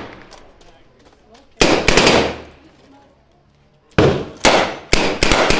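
Bren light machine gun firing blanks in short bursts, each shot trailing off in echo: a quick burst about a second and a half in, then a longer string of shots from about four seconds in.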